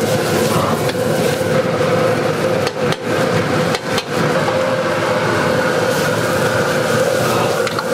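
Cabbage and onions stir-frying in a carbon-steel wok over a high-flame gas burner: the burner's steady roar and sizzling, with the metal ladle and spatula knocking and scraping against the wok.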